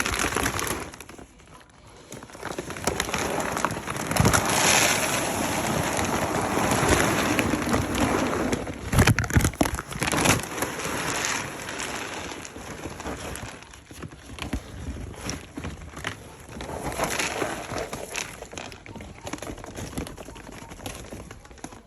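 Dry dog food kibble pouring from a bag into a container: a dense patter of hard pellets. It builds about two seconds in, runs heaviest until about twelve seconds, then comes in smaller, thinner pours that taper off.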